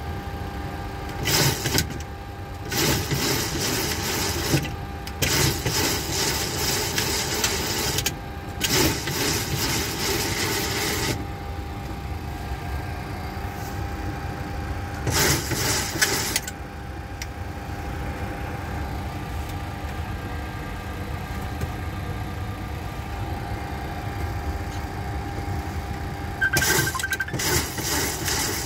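Boeing 737-700 stabilizer trim wheels spinning under electric trim during a stab trim test, in about six separate runs of half a second to three seconds, over a steady background hum.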